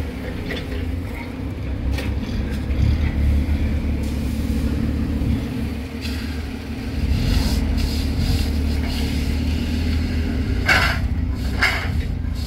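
Forklift engine running steadily as the forklift drives across the lot, with two short hisses about a second apart near the end.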